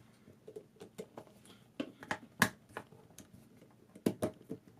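Irregular small clicks and taps of a plastic hard-drive docking station's housing and parts being handled as it is taken apart, with sharper clicks about two and a half seconds in and again near the end.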